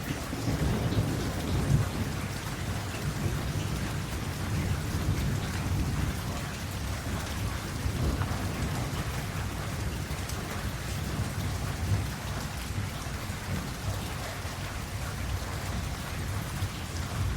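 Steady rain falling, with a low, rolling rumble of thunder underneath that swells briefly about two seconds in.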